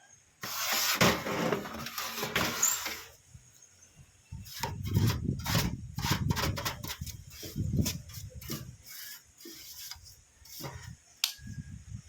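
Desktop computer case being closed up by hand: the sheet-metal side panel scrapes and rubs as it is slid into place, followed by a run of irregular knocks and clicks as it is seated and fastened.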